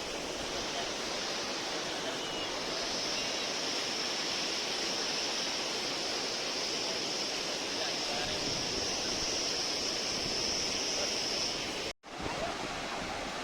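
Steady rush of falling water, an even unbroken hiss with no breaks. It cuts out abruptly for a split second about twelve seconds in, then resumes.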